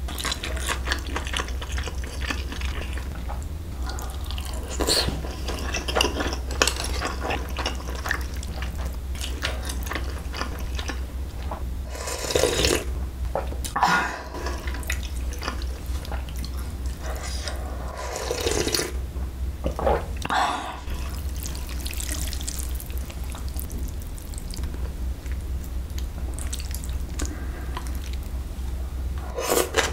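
Close-miked eating of cold milmyeon noodles and dumplings: chewing and small mouth and utensil clicks, with several short, loud slurps of the cold broth from a spoon, twice around the middle and twice a few seconds later. A steady low hum runs underneath.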